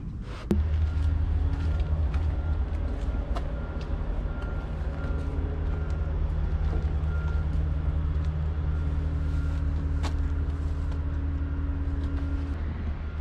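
A steady low mechanical rumble with a faint steady hum, like a motor or engine running, starting abruptly about half a second in.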